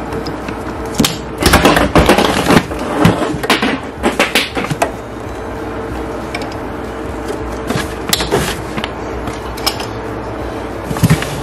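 Clattering and crinkling as orange PEX pipe is handled and pushed through basement joists against plastic vapour barrier. A dense run of knocks and crackles comes in the first few seconds, then scattered clicks over a steady faint hum.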